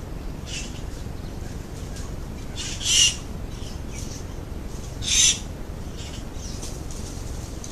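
A bird calling: two loud short calls about two seconds apart, with fainter calls before, between and after them, over a steady low rumble.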